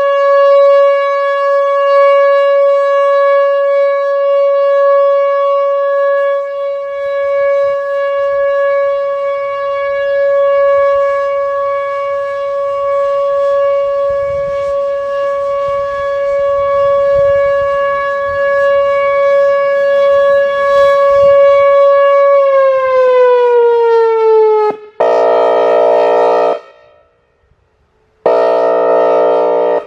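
Whelen Vortex R-4 electronic siren sounding its steady alert tone, pitched at about 560 Hz. About 22 seconds in the tone winds down in pitch. It then switches to its airhorn signal: two long, rich horn blasts with a short pause between them.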